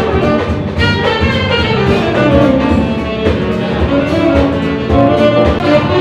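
Music with bowed strings prominent.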